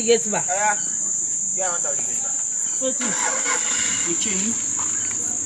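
Crickets trilling in a steady, high-pitched chorus.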